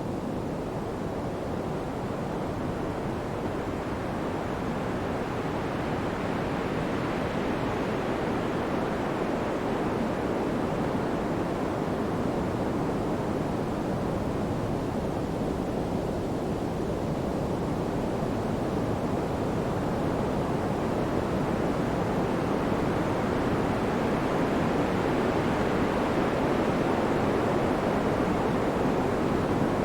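Pink noise: a steady, even hiss weighted toward the low and middle range. Its upper edge slowly brightens and dims over many seconds, and it grows slightly louder toward the end.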